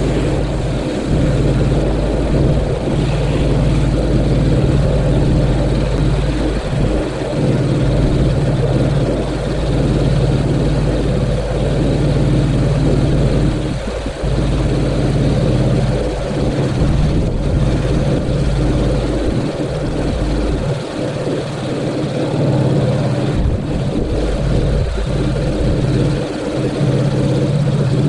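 Pressure washer running steadily with a low drone, dipping briefly a few times.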